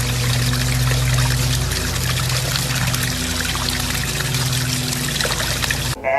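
Steady rushing of running or pouring water, with a low hum underneath; it cuts off abruptly near the end.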